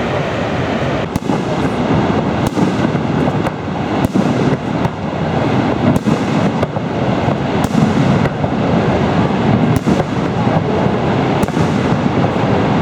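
Fireworks display: a steady run of bangs, a little more than one a second, beginning about a second in, over a continuous rushing background.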